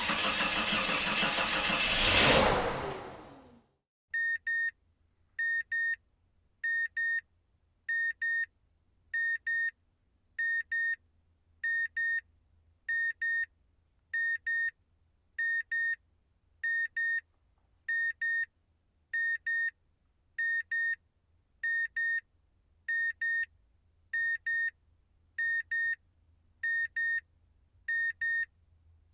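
A car engine running and revving up briefly, then dying away about three and a half seconds in. After it, an electronic beeper sounds short high double beeps, repeating about once every second and a bit, over a faint low hum.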